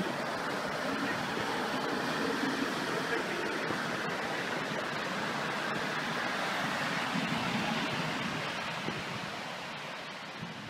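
Steady rushing of surf breaking along a sand beach, easing off near the end.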